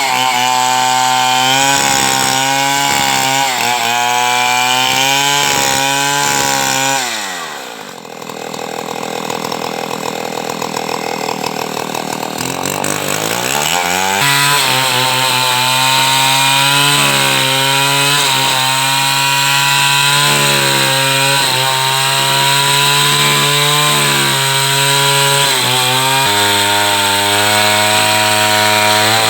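Chainsaw running at high revs, its pitch wavering as it cuts. About seven seconds in it drops to idle, and about six seconds later it revs back up and runs hard again.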